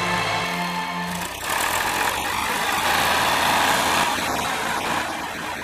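Ursus tractor's diesel engine running steadily. The tail of background music fades out in the first second or so.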